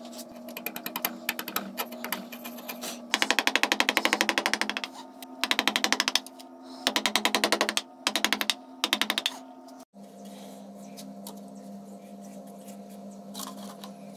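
Carving gouge cutting into a wooden relief panel: runs of quick clicking strokes in several bursts. About ten seconds in the sound cuts off, leaving a quieter steady hum.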